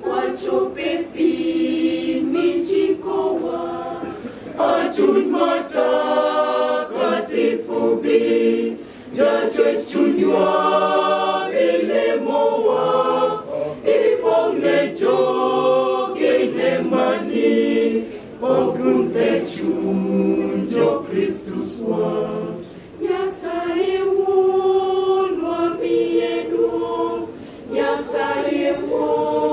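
Mixed choir of women's and men's voices singing a cappella in harmony, in held phrases with brief breaks between them.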